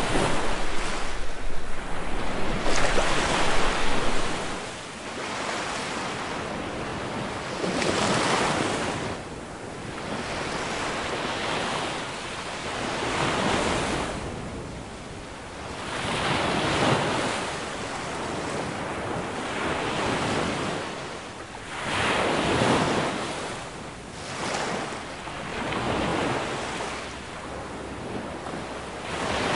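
Small Baltic Sea waves breaking and washing up a sand beach, the surf swelling and fading every few seconds. It is loudest in the first few seconds, where the waves break close in around wooden groyne posts.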